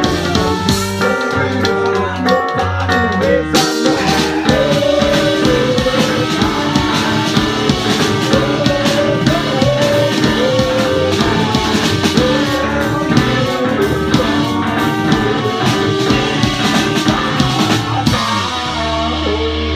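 Live band playing loud amplified rock music with a drum kit, electric keyboard and guitar, the drums hitting steadily throughout.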